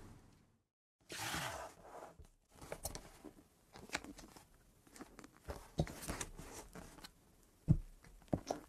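Fingers squishing and poking thick white fluffy slime, giving irregular sticky crackles and clicks, with one louder pop near the end.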